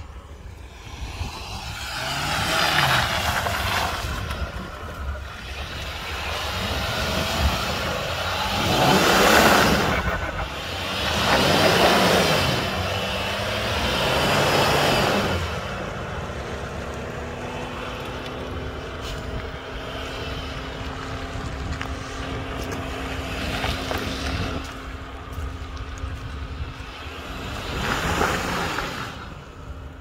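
Jeep Grand Cherokee SUV revving in repeated bursts as it ploughs through mud, the engine pitch climbing and falling back with each burst. Over the second half a steadier engine hum holds, with one more burst of revs near the end.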